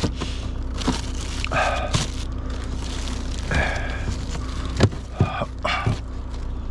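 Light clicks and knocks from food containers and bags being handled, several times, over a steady low hum.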